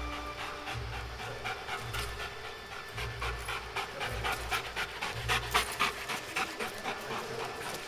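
Young Belgian Malinois panting hard and fast, several quick breaths a second, loudest a little past the middle.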